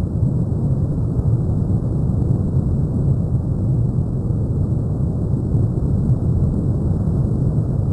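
Electric RC airplane in flight, heard through a small camera strapped to it: a steady low rush of wind and airflow noise.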